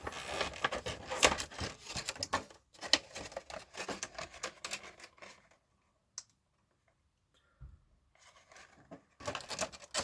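Cardboard and plastic packaging of a miniature figurine pack being opened and handled: crackling, rustling and clicking, going almost quiet for a few seconds past the middle before starting again.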